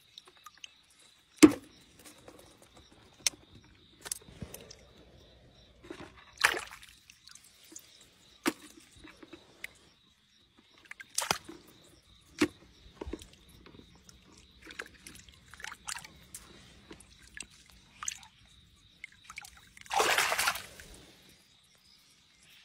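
Scattered splashes and sloshing in shallow muddy water, with sharp clicks from metal tongs as crayfish are grabbed. The loudest click comes about a second and a half in, and there is a longer splashing rush near the end.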